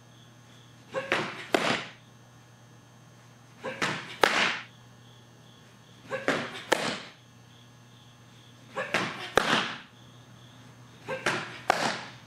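Five fastpitch softball pitches, about one every two and a half seconds: each a sharp crack at the delivery, then about half a second later the louder pop of the ball into the catcher's leather mitt. A steady low hum runs underneath.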